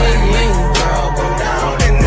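Music: a song with a heavy, steady bass and a vocal line over it, starting abruptly at a cut.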